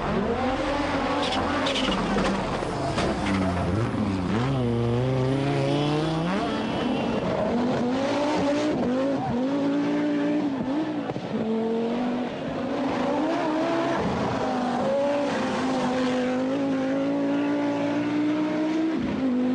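Audi Quattro Group B rally car's turbocharged inline five-cylinder engine revving hard through the gears, its pitch climbing and dropping again and again, with a long rising sweep about five seconds in.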